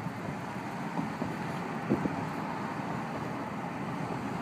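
Steady road and engine noise of a car driving slowly, heard from inside the car, with a light knock about a second in and a slightly louder one about two seconds in.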